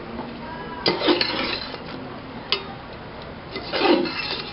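Metal spoon scraping and clinking against the inside of a metal cooking pot as carrots are stirred into meat: a few sharp clinks, then a longer scrape near the end.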